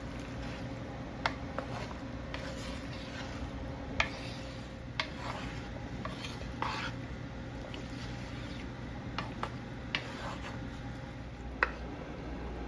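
Wooden spoon tossing a chopped nopal cactus salad in a bamboo bowl: soft rustling of the vegetables, broken by scattered sharp knocks of wood on wood, over a steady low hum.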